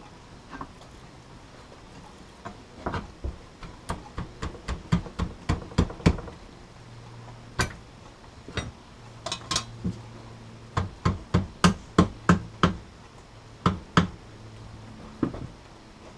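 Mallet knocking on the metal bracket of an outboard's power trim and tilt unit, tapping it into place. Sharp knocks come a few a second in bursts with short pauses, starting about two and a half seconds in.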